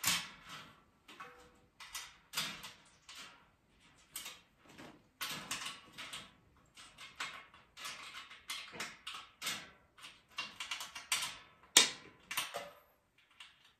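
Irregular clinks, knocks and scrapes of a metal mesh trolley frame being handled as its parts are fitted and bolted together, with one sharp knock near the end.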